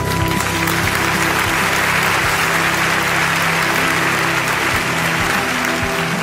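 Audience applause over stage music; the clapping swells through the middle and eases toward the end while the music's held notes carry on underneath.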